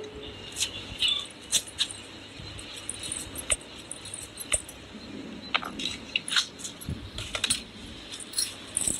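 A metal spoon stirring and tossing chunks of jackfruit in a pressure cooker, with irregular clinks and scrapes of metal against the pot.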